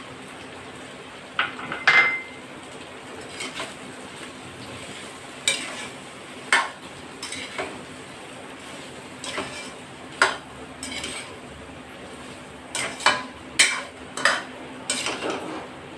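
Steel spatula stirring okra in a metal kadhai, scraping and knocking against the pan in irregular clinks, more of them near the end, over a faint sizzle of frying.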